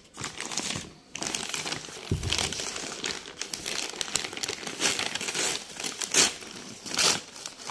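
Brown kraft-paper mailer bag crinkling and rustling in irregular crackles as hands pull at it and work it open with a knife, with a dull bump about two seconds in.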